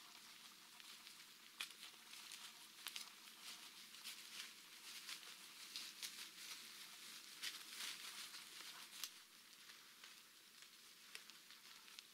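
Faint rustling with scattered light crackles over a quiet hiss, the crackles thickest through the middle.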